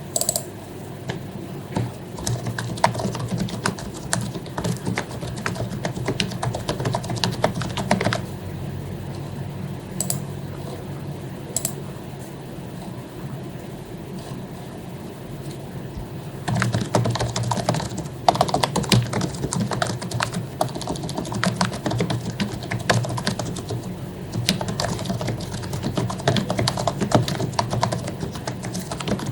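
Typing on an HP membrane keyboard, with quick runs of soft key clicks. The typing thins out in the middle for several seconds, leaving only a few lone clicks, then picks up again densely.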